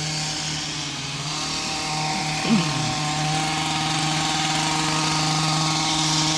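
Small gasoline engine of a handheld yard power tool running steadily at high speed, growing a little louder from about two seconds in. A short rising-and-falling sound cuts in about two and a half seconds in.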